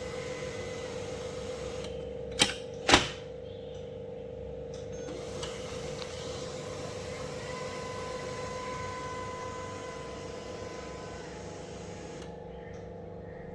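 Canon LBP2900 laser printer running with a steady motor hum and a pitched drone, with two sharp clicks about two and a half and three seconds in.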